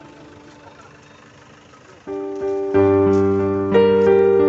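Music: an electronic keyboard comes in suddenly about two seconds in with loud sustained chords, changing chord about once a second. Before it there is only faint background noise.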